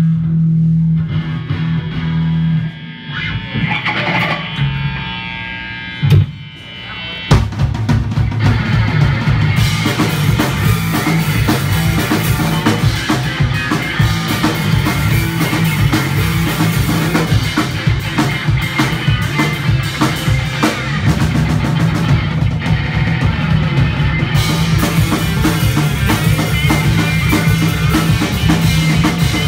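Live punk rock band of electric guitar, bass guitar and drum kit. After a sparse, stop-start opening, the full band comes in loud about seven seconds in and plays on at a steady driving pace.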